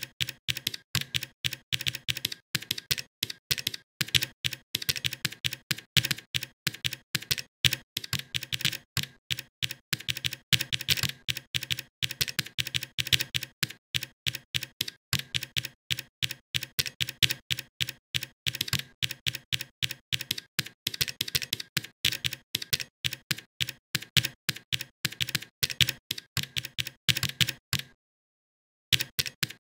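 Rapid typing on a computer keyboard: a steady stream of key clicks that stops dead for about a second near the end.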